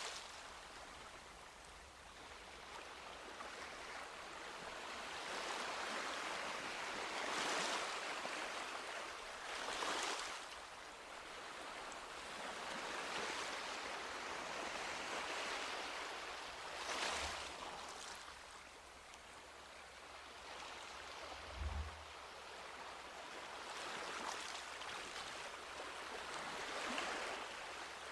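Small sea waves breaking and washing up a beach, with the surf swelling every few seconds over a steady rush of water. There is one brief low thump about two-thirds of the way through.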